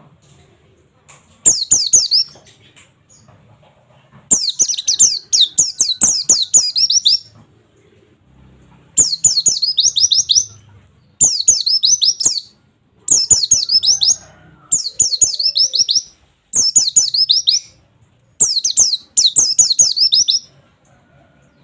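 Pleci (white-eye) singing its rapid-fire 'nembak' song: repeated bursts of fast, high, downward-sweeping 'wit wit wit' notes, each burst lasting one to two seconds, with short pauses between them.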